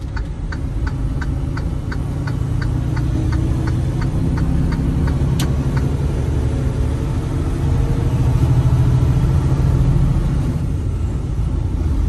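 Semi truck's diesel engine rumbling steadily inside the cab. Over it, a turn signal clicks about three times a second and fades out about halfway, with one sharper click about halfway, as the truck works across lanes.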